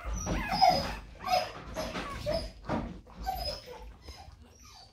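Week-old English Springer Spaniel puppies whimpering and squeaking, many short, high, wavering cries overlapping one another. The cries are loudest in the first few seconds and grow fainter toward the end.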